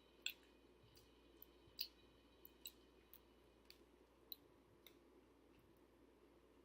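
Quiet eating sounds close to the microphone: soft chewing of a doughnut, heard as scattered wet mouth clicks at an irregular pace.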